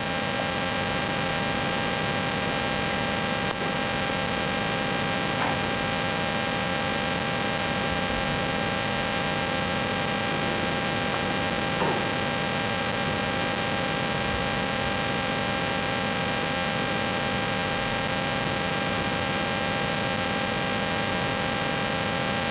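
Steady hiss with a constant electrical hum and a thin steady tone: the background noise of a quiet room recording, with no other sound standing out.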